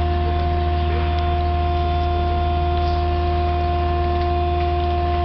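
A machine running steadily: a constant low hum with a few steady whining tones above it, unchanging throughout.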